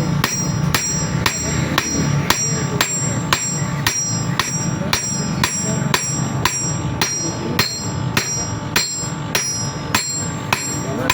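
A hammer striking metal in steady, even blows, about two a second, each strike ringing with a high metallic tone.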